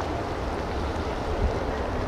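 Wind buffeting the microphone over a steady, even outdoor rushing noise, with no distinct events.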